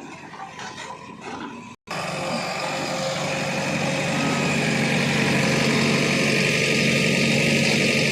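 Heavy diesel engine running steadily after an abrupt cut about two seconds in. It is louder after the cut, swells a little over the next two seconds, then holds steady; before the cut there is a quieter engine sound.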